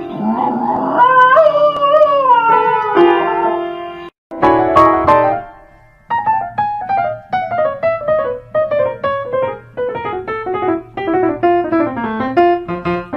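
Piano keys pawed by a small dog. For the first few seconds a wavering howl sounds over held piano chords. After a brief break, single piano notes follow one another, stepping gradually lower in pitch.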